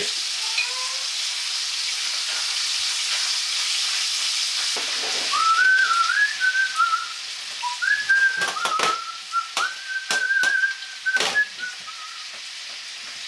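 Salmon frames frying in a frying pan on a gas stove, a steady sizzle. From about five seconds in, a high thin whistling tone wavers and then holds, with a few sharp clicks among it.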